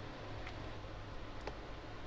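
Two faint light ticks about a second apart as a small hand tool and fingers touch the board of a book cover during restoration work, over a steady low hiss and hum.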